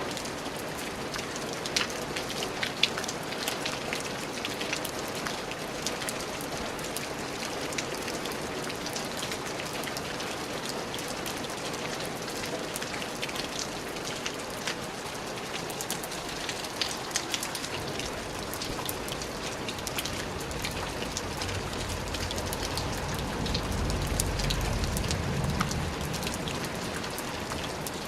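Steady rainfall, with the close ticks of single drops striking a surface through the hiss. About three quarters of the way in, a low rumble swells and then eases off.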